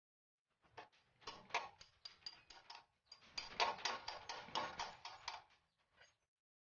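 A series of sharp mechanical clicks in two runs of about three to four a second, with a short break between them.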